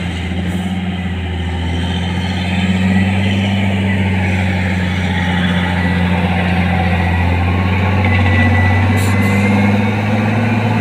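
Diesel engine of a LiuGong wheel loader running steadily under load as the machine drives up to a tipper truck and lifts its loaded bucket. It grows a little louder through the second half, with a faint high whine about eight seconds in.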